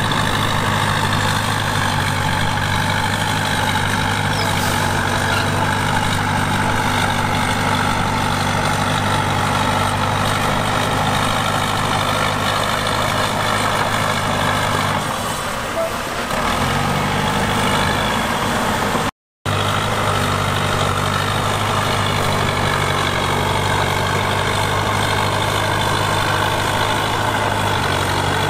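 Heavy diesel earthmoving engine running steadily under load, its note dipping briefly about halfway through. The sound breaks off for an instant a few seconds later.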